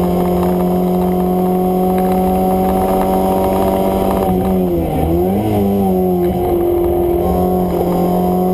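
Fiat Seicento Sporting's 1.2-litre eight-valve four-cylinder engine heard from inside the cabin, running hard at steady revs. About halfway through, the revs dip briefly and climb back, then hold steady again.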